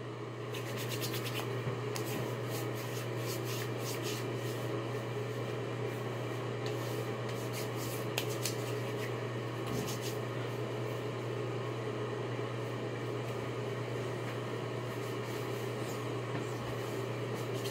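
Hands rubbing hair product together and working it through hair: soft rubbing and scratching, thickest in the first few seconds, over a steady low hum.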